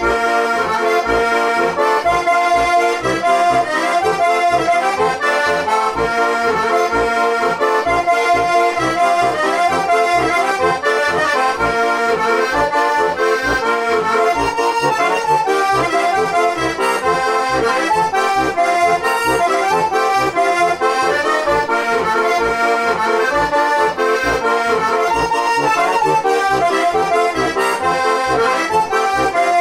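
A Žúbor heligonka, a four-voice diatonic button accordion in F–B♭ tuning with brass reeds, playing a lively Slovak folk tune: a melody in chords over an even, regular bass beat.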